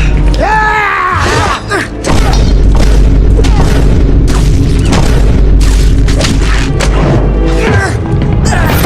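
A loud, dense string of dubbed-in comedy sound effects standing in for punches and blows: repeated booms and hits over music, with a pitched sound that slides downward about half a second in.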